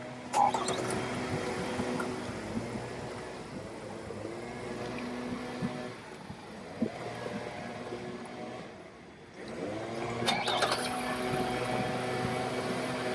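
Car engine running, rising in pitch as it revs up about ten seconds in. A single sharp knock sounds about half a second in.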